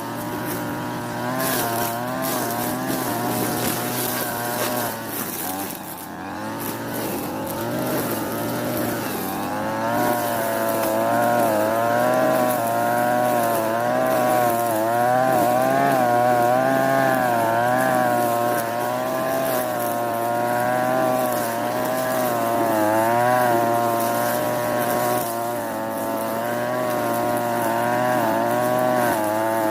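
Europa Hilt TB43 two-stroke brushcutter engine running at high revs while cutting grass, its speed wavering up and down under the changing load. It grows a little louder from about ten seconds in.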